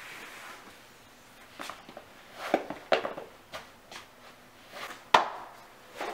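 A person moving about and handling things: a series of irregular knocks and bumps with some rustling, the sharpest and loudest a single thump about five seconds in.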